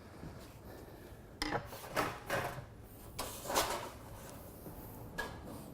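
Several short clunks and scraping rubs of metal gas-barbecue parts being handled as the side-burner shelf is hooked onto the loosened bolts. They start about a second and a half in.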